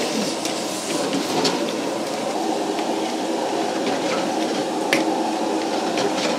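Stir-frying in a large iron wok over a high gas flame: a steady noise of burner and sizzling food, with the metal ladle scraping and clanking against the wok now and then, the sharpest clank about five seconds in.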